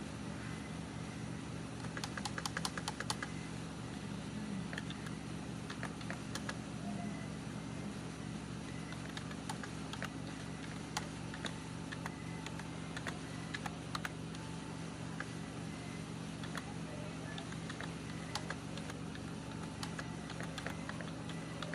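Keystrokes on a keyboard, irregular and sparse, with a quick run of taps about two seconds in, over a steady low hum.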